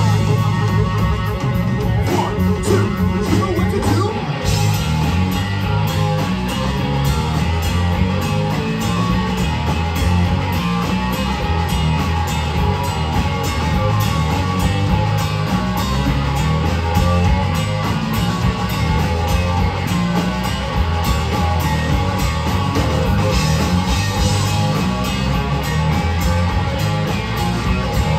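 Live blues-rock band playing loud with a steady drum beat: a Stratocaster-style electric guitar leads over electric bass and drum kit, with a sung line near the start before the guitar takes over.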